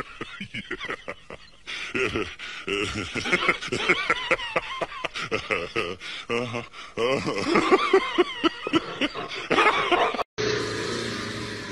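A person laughing in quick repeated bursts, mixed with talking and snickering; it breaks off briefly near the end.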